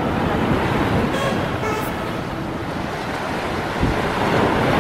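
Wind and sea surf: a steady rushing noise, with wind buffeting the microphone.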